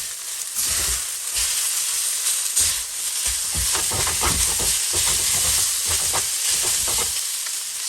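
Soy-sauced fried noodles sizzling in a hot pan, with many short scraping strokes of a utensil working noodles that stick to the pan.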